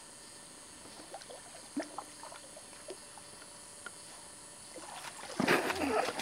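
A retriever splashing in lake water: a few small splashes and drips, then about a second of loud splashing near the end.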